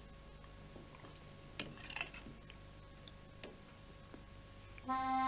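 A few faint, scattered clicks and taps of metal spoons against dishes during a meal. Near the end, accordion music begins.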